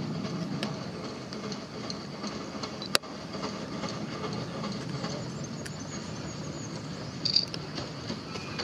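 Narrow-gauge steam locomotive and its coaches running slowly along the track, a steady low rumble of wheels and train, with a single sharp click about three seconds in.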